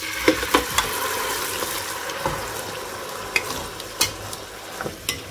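Beef curry poured into hot oil and fried shallots in a non-stick pan, sizzling strongly at first and dying down gradually, with a few light knocks as the pot and spatula touch the pan.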